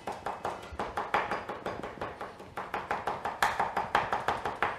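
Chef's knife mincing fresh parsley on a bamboo cutting board: a quick, even run of knocks of the blade on the wood, several a second.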